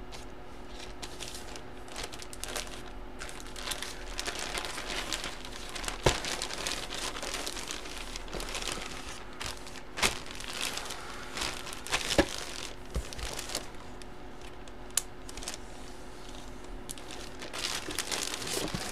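Clear plastic bag crinkling and rustling as a jersey inside it is handled and smoothed flat, with a few sharper snaps of the plastic.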